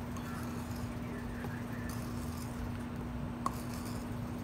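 Faint scraping of a spoon in a clay bowl as sugar is scooped out and poured onto a stone metate, over a steady low hum. A single short click about three and a half seconds in.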